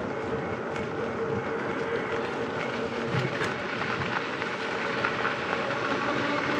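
Steady rolling noise of a slowly moving vehicle, with faint rattling and a light steady hum.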